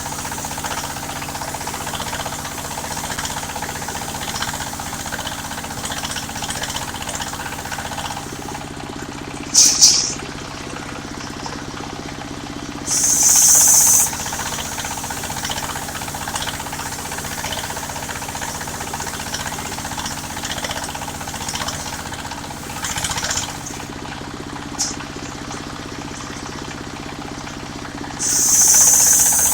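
Engine of a mobile circular sawmill running steadily, with the circular saw blade cutting into jackfruit wood in loud, high-pitched bursts: briefly about a third of the way in, for about a second near halfway, and again near the end.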